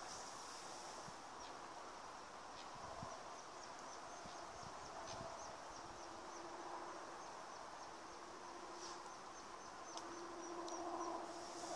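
An insect chirping in a steady run of quick, high ticks, about four a second, over faint outdoor background noise. A brief rustle comes near the end.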